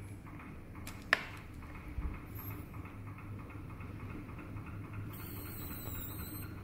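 Low steady hum with one sharp click about a second in and a faint thump a second later.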